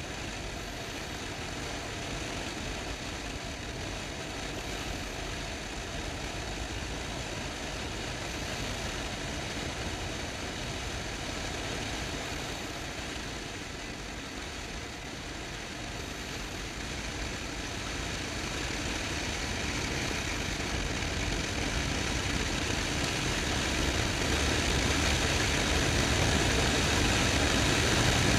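Motorcycle on the move, its engine running under a steady rush of wind and road noise, getting louder over the last ten seconds or so.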